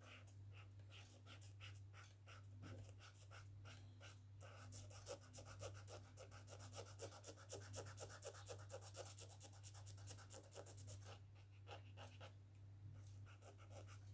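Black brush-pen marker scratching on sketchbook paper in quick back-and-forth colouring strokes. The strokes come faster and louder through the middle, over a low steady hum.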